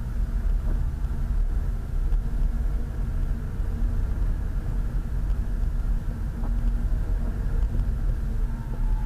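A car driving, heard from inside: a steady low rumble of engine and road noise with a faint constant hum.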